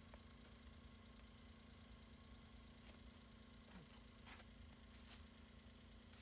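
Near silence: a faint steady low hum, with a few soft scattered clicks.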